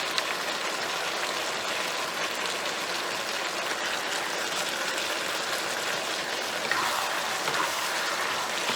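Chicken stir-fry with sauce and green onions sizzling steadily in a hot pan, with a couple of brief clicks about seven seconds in.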